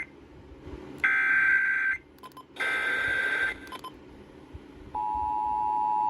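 Emergency Alert System test over radio: two one-second screeching bursts of SAME header data, about half a second apart. About five seconds in, the steady two-tone EAS attention signal starts.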